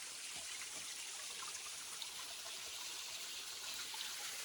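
Forest stream running steadily, a continuous trickling and babbling of flowing water.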